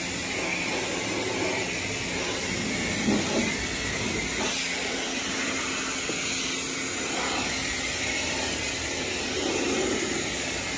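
Self-serve car wash high-pressure wand spraying soapy water onto a car's side panels and wheel, a steady hiss of spray.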